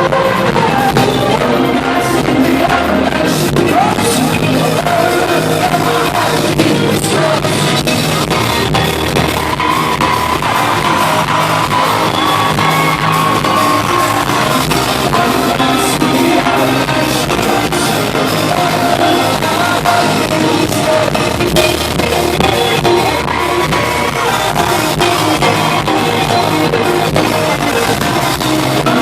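Music with a singing voice, loud and continuous.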